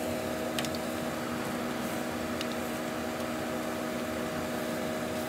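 Steady hum of a running kitchen appliance, several low tones held unchanged, with a few faint ticks.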